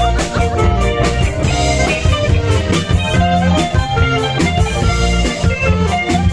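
Cha-cha dance music played loud through a large mobile sound system, with heavy bass and a steady beat.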